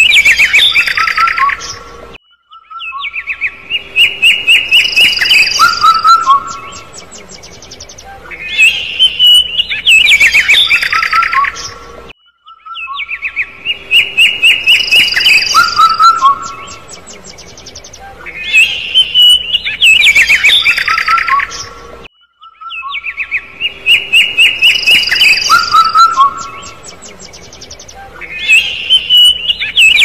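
A bird chirping in quick runs of high, gliding notes. The same passage repeats every ten seconds as a looped recording, with a brief cut-out between repeats.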